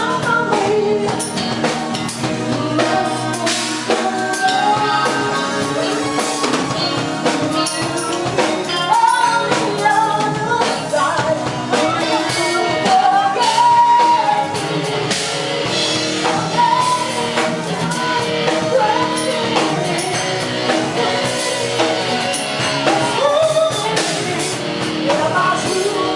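A live band playing a song: a singer over drum kit and guitar.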